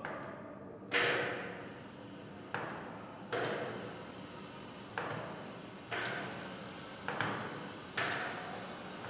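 Freeport surface grinder's spindle motor being switched on and off about eight times in quick succession. Each button press brings a sudden click and whir that fades away as the wheel coasts. The newly mounted, not yet balanced 10-inch wheel is being cycled up gradually toward full speed.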